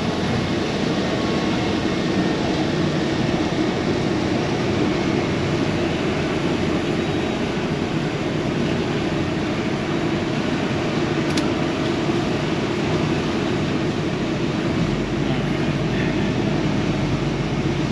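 Semi truck's diesel engine running steadily, heard from inside the cab while the rig is maneuvered, with a single sharp click about eleven seconds in and a deeper low hum joining near the end.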